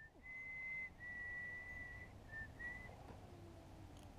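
A person whistling a slow tune in clear held notes that step a little up and down in pitch, stopping about three seconds in.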